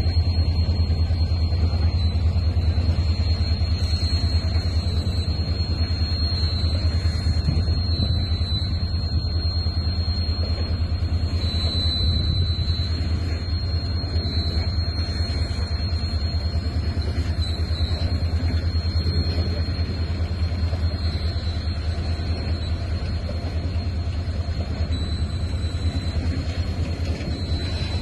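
Low, steady rumble of a freight train of flat wagons rolling slowly past, with a thin steady high whine over it.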